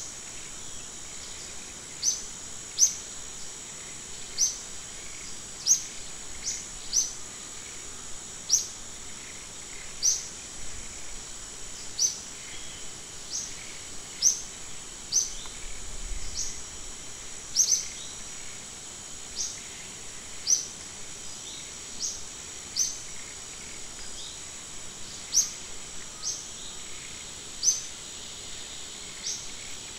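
Outdoor natural ambience: a steady, high-pitched insect drone, with a bird repeating a short, sharp, downward-sliding chirp about once a second.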